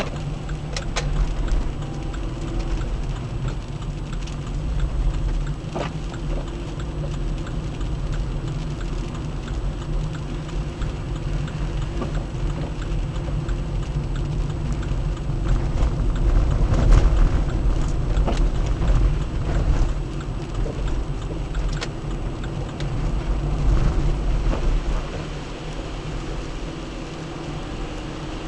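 Car cabin noise while driving on a wet road in the rain: a steady low engine and road rumble with tyre hiss, and scattered light ticks. It swells a little about halfway and again a few seconds later.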